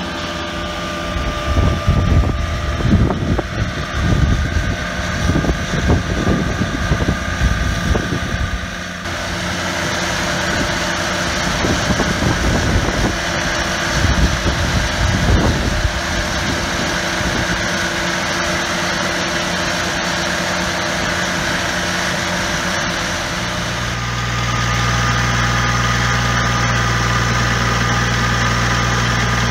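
Amazone PH1250 mower tractor's engine running steadily at idle, with uneven low rumbling for the first several seconds. About two-thirds of the way in it grows louder, with a stronger low hum.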